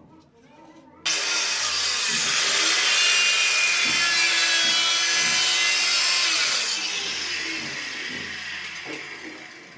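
Handheld electric tile cutter starting up about a second in and its disc cutting straight through a ceramic tile, a loud high-pitched cutting noise. Near seven seconds the highest part drops away as the cut ends, and the motor fades as it winds down.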